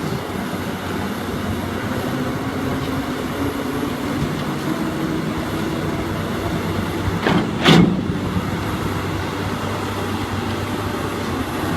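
Amphibious excavator's diesel engine running steadily, with one loud clank about seven and a half seconds in.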